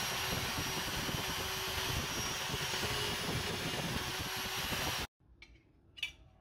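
Electric drill motor on a homemade drill press running steadily while the bit bores a hole into a wooden block. It stops abruptly about five seconds in, followed by two faint clicks near the end.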